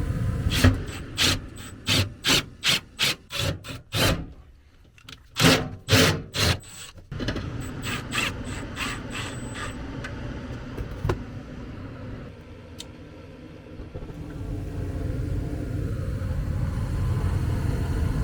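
Hand ratchet clicking in quick, even strokes, about two to three a second in two runs with a short pause between, as the realigned burner assembly of an ICP gas furnace is fastened back in. A steady low rumble from the running furnace lies underneath.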